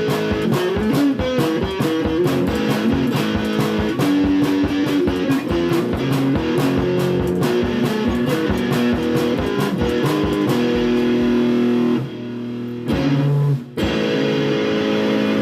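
Guitar music: plucked notes and chords, with a short dip in level about twelve seconds in before the playing picks back up.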